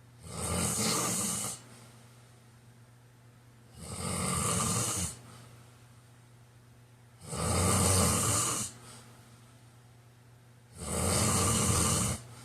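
A man snoring in slow, regular breaths: four loud snores, each lasting about a second and a half, roughly every three and a half seconds, with quiet breathing between them.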